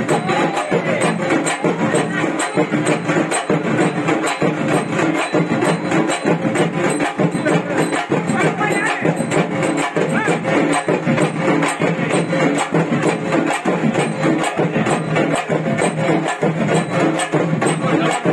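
Loud festival music driven by fast, steady drumbeats with clattering, jingling percussion, keeping an even beat of several strokes a second.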